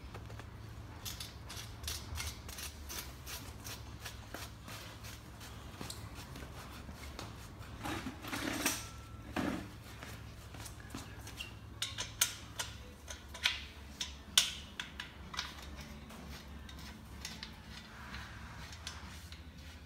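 Small metal clicks and clinks as Allen key bolts are fitted and turned by hand into the steel end piece of a table tennis table frame, with a couple of louder knocks about eight to nine seconds in and a run of sharp clicks around twelve to fourteen seconds. A steady low hum runs underneath.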